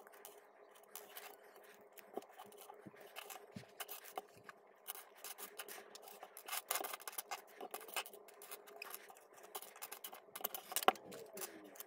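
Hands handling plastic toy-building pieces, part bags and a paper instruction booklet: irregular rustling, scraping and small clicks, with one sharper click near the end, over a faint steady hum.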